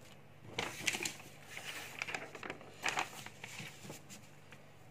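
Paper rustling as a notebook page is turned over and smoothed flat by hand: several short, faint rustles and crackles.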